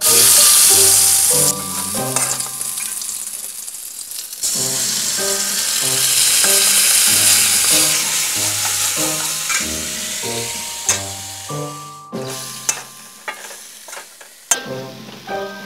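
Food frying in hot oil in a metal wok on a gas stove, stirred with a metal spoon. A loud sizzle starts at once, eases off, surges again about four seconds in and then dies down. Spoon clinks and scrapes against the wok near the end.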